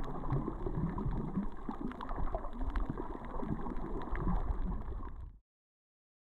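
Muffled underwater sound recorded while snorkelling over a coral reef: water sloshing and gurgling with a low rumble and scattered sharp clicks. It cuts off suddenly about five seconds in, leaving silence.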